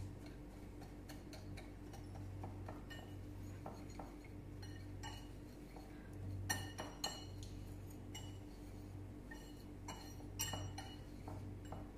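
Wire whisk stirring a dry flour coating mix in a ceramic bowl: light, irregular clinks and ticks of the metal against the bowl, a little louder about halfway and near the end. A steady low hum runs underneath.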